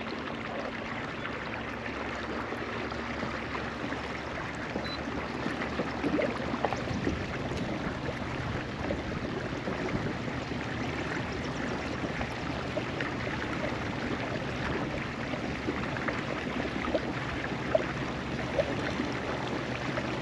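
Water moving and lapping steadily against a kayak's hull, with small splashes and ticks throughout.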